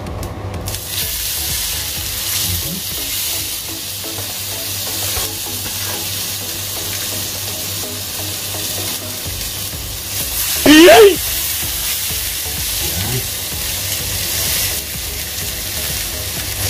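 Whole tilapia sizzling on a hot electric grill pan, the steady sizzle starting about a second in as the fish goes onto the oiled ridges. About eleven seconds in there is a brief, loud, wavering high-pitched sound.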